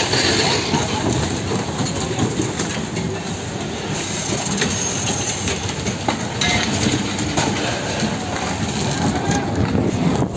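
Loud, continuous rushing and rumbling of tsunami surge water churning through a marina, with a couple of short sharp knocks in the middle.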